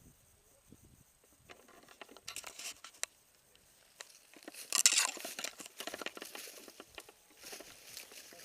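Crackling footsteps and rustling of clothing and gear as a player moves, irregular clicks growing denser from about two seconds in, with one loud brief rustle about five seconds in.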